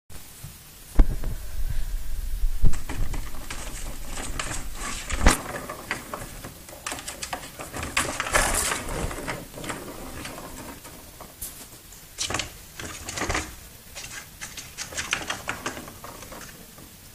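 Plastic ball-track cat toy rattling as a cat bats the ball around it: irregular clicking and rolling of the ball in the plastic track, with a few louder knocks about a second in, near 3 s, 5 s and 12 s.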